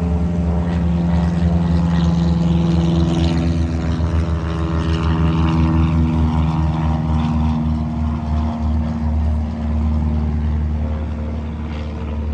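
Small training airplane's piston engine and propeller running steadily at a constant speed, a loud, even drone.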